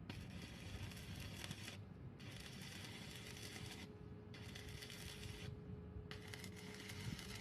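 Mechanical rattling noise in stretches of about a second and a half with short breaks between them, over a faint steady hum that comes in partway through.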